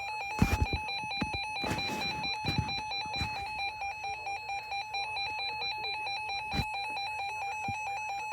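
Emergency alert attention tone sounding ahead of a new severe thunderstorm warning: a single pitched electronic tone beeping rapidly and steadily. A few soft knocks sound over it in the first few seconds and once more later on.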